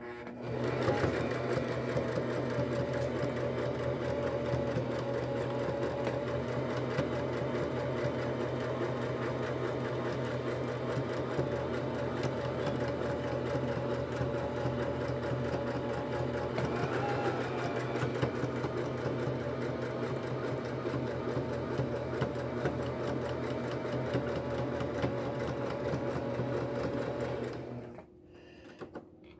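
Electric domestic sewing machine running steadily, its needle stitching through layers of denim with a fast, even clatter over a motor hum, sewing an overcasting cross stitch around the edge of a stuffed toy. It starts about half a second in and stops suddenly near the end.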